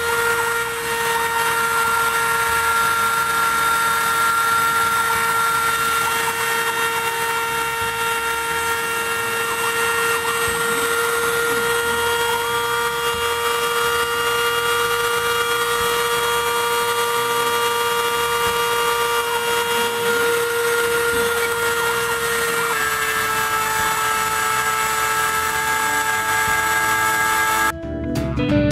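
A rotary tool spindle on a homemade CNC router whines steadily at high speed while its engraving bit cuts traces into a copper-clad circuit board. Higher whining tones from the axis motors come and go over it as the machine moves. Near the end the sound breaks off into music.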